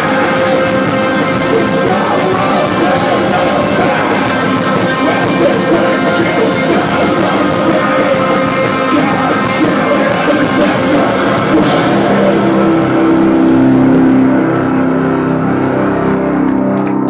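Post-hardcore band playing live at full volume, with distorted electric guitars and drum kit. About twelve seconds in, the drums and cymbals stop and the final guitar chords ring on.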